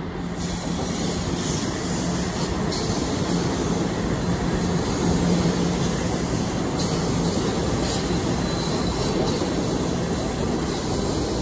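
TTC Toronto Rocket subway train rolling past on curved track: a steady rumble of wheels on rail with a low hum that comes and goes. Faint high-pitched wheel squeal rises now and then over the rumble.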